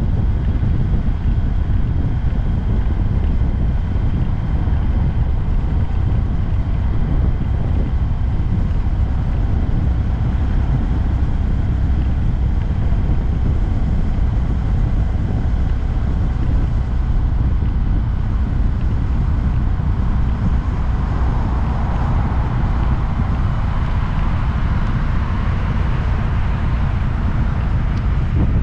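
Wind buffeting the microphone on a moving 2022 Honda Grom, with the bike's small single-cylinder engine running steadily underneath. From about twenty seconds in a louder mid-pitched hum swells for several seconds, then eases.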